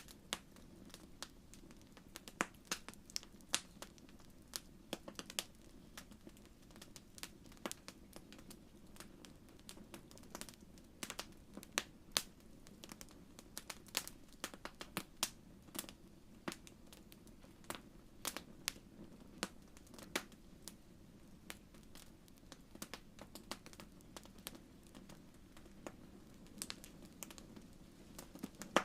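Wood fire in a fireplace crackling: irregular sharp pops and snaps, several a second at times, over a soft steady low rumble of the flames.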